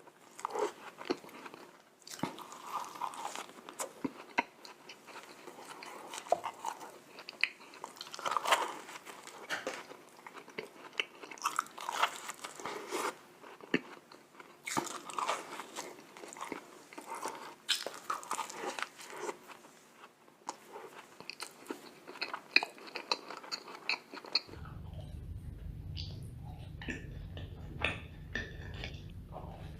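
Close-miked biting and chewing of glazed donuts, with many irregular small clicks and mouth noises. A steady low hum comes in near the end as the chewing sounds thin out.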